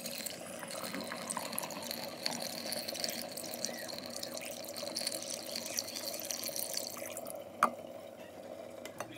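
Spinach green juice pouring in a thin stream through a plastic funnel into a glass jar, trickling steadily and tapering off about seven seconds in. A single sharp knock follows shortly after.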